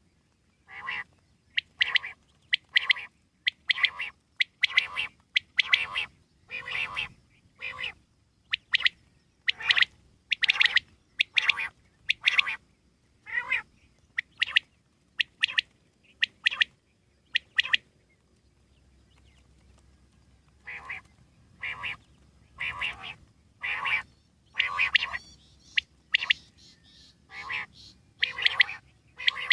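Common quail calling over and over, short harsh calls about once a second, broken by a pause of a couple of seconds partway through.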